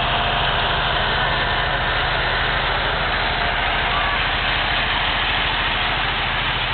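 Farm tractor engine running steadily with a low, pulsing throb as the tractor passes close by, towing a wagon.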